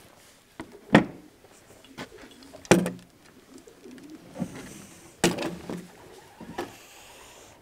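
Feral pigeons cooing, with three sharp knocks about one, three and five seconds in.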